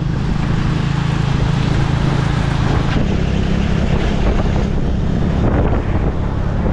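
Tuk-tuk's motorbike engine running with a steady low hum while under way, with wind and road noise rushing over the microphone.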